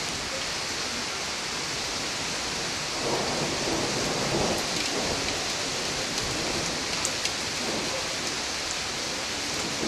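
Steady rain hissing, with a rumble of thunder swelling about three seconds in and fading over the next couple of seconds.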